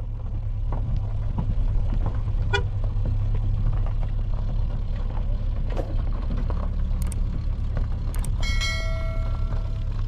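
Car engines running low and steady as two cars pull away over a rocky dirt track. Near the end a car horn sounds one held honk of about a second and a half.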